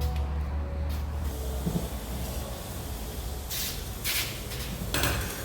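Three short bursts of hissing air in the second half, over a steady background hiss, with music fading out about a second in.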